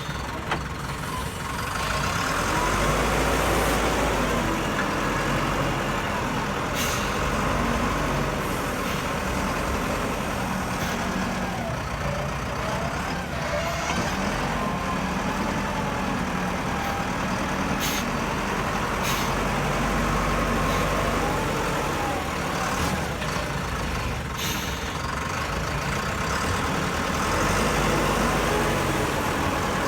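Diesel engine of a JCB backhoe loader running steadily, with a wavering whine that rises and falls as the machine works and a few sharp knocks.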